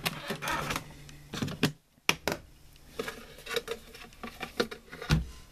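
Irregular clicks and knocks of hard plastic being handled: the lid and parts of a small twin-tub washing machine being opened and moved.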